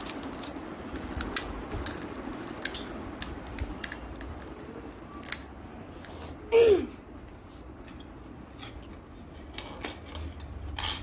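Crisp pani puri shell crackling and snapping as it is broken open with the fingers, a run of sharp little clicks. A short loud sound falling in pitch comes about six and a half seconds in, and a steel spoon clicks against the plastic plate near the end.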